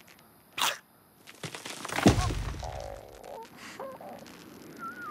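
Cartoon slapstick sound effects: a short sharp swish, then a heavy thud about two seconds in with a low boom that dies away. Small squeaky, gliding vocal noises follow near the end.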